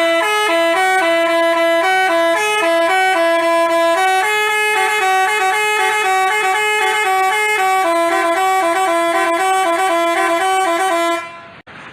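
Telolet Basuri multi-tone bus horn playing a tune in quick stepped notes. It stops abruptly near the end.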